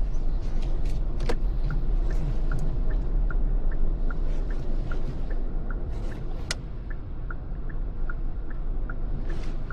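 Car cabin noise while driving: a steady low rumble of engine and road. From about a second and a half in, a turn-signal indicator ticks evenly, about two to three times a second.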